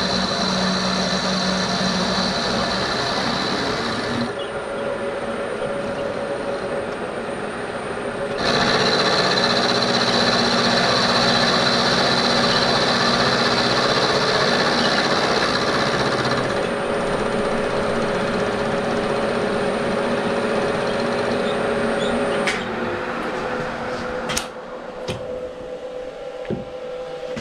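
Bridgeport milling machine with an end mill cutting a flat on a metal cylinder-cover casting, a steady whirring grind with a held tone. The cut gets louder about a third of the way in. Near the end the cutting stops, leaving a quieter hum and a couple of sharp clicks.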